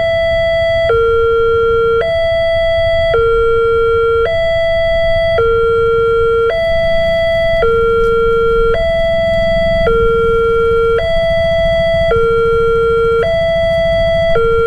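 Railway level crossing alarm sounding its electronic two-tone warning, alternating between a higher and a lower tone about every second, signalling an approaching train. A low rumble runs underneath.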